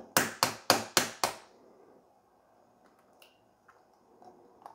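An egg knocked against the rim of a 12-inch Henckels Capri Granitium nonstick skillet to crack it: a rapid run of sharp knocks, about four a second, each ringing briefly, over the first second and a half. After that there are only a few faint small clicks as the shell is pulled open.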